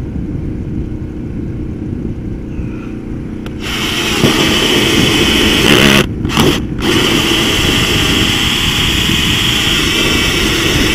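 Cordless drill running a hole saw, cutting through the RV's exterior side wall. It starts about a third of the way in with a steady high grinding whine, stops briefly twice near the middle, then cuts steadily again; a low rumble lies under it throughout.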